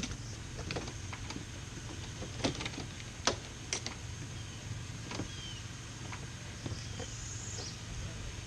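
Scattered light clicks and taps of a plastic car door trim panel being pried and worked loose from its clips, over a steady low hum.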